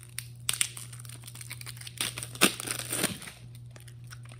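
Plastic wrapping on a pack of playing cards crinkling and crackling as hands work to open it, in two spells, the longer and louder one from about two to three seconds in.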